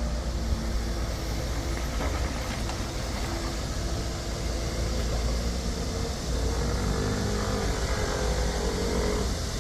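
Excavator's diesel engine running with a steady low rumble. A whining tone shifts up and down in pitch in the second half.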